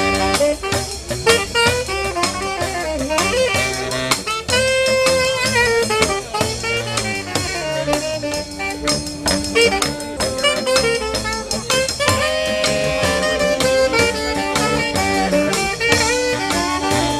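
A live brass band led by saxophones plays a melody with several horns in sustained, held notes, over a steady percussion beat.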